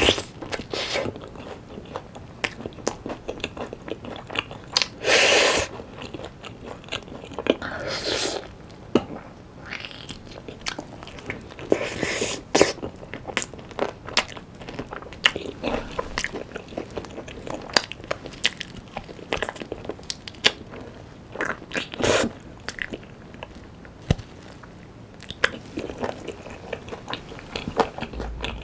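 Close-miked eating of sauce-coated Korean fried chicken (a yangnyeom chicken drumette): bites with crisp crunches and steady chewing. A handful of louder crunching bites stand out every few seconds.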